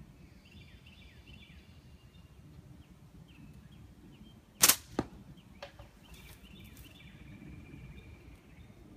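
Homemade slingshot with double-layer natural latex bands shot from full draw: the bands release with one loud snap about halfway through, followed a third of a second later by a second, sharper click and then a faint knock.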